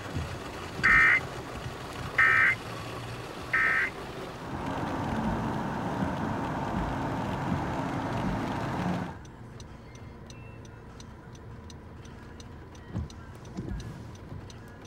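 Three short electronic beeps about a second and a half apart, then the louder hiss of heavy rain and wet road noise around a moving car. About nine seconds in the sound drops suddenly to a quieter hush with fast, light ticking.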